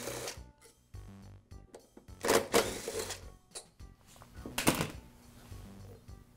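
Ignition coil mounting screws on a Briggs & Stratton small engine being backed out with a hand tool: short bursts of metallic clicking and rattling, one about two seconds in and a shorter, sharper one a little past four and a half seconds.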